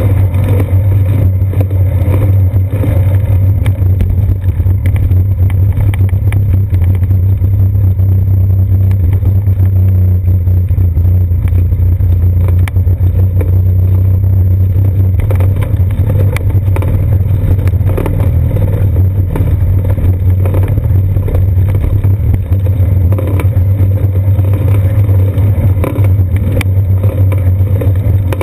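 Road vibration and wind on a seat-post-mounted action camera on a moving bicycle: a steady low rumble with frequent small rattling knocks as the wheels go over bumps in the path.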